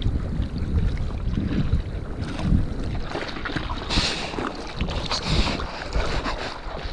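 Seawater splashing and rushing against a surfboard as the surfer paddles, with wind buffeting the microphone. The splashing picks up from about two seconds in and is loudest around four and five seconds.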